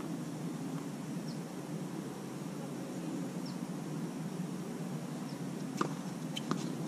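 Steady low outdoor background noise with a few faint high chirps; near the end, two sharp knocks about two-thirds of a second apart as a tennis ball is struck by a racket and bounces on the hard court.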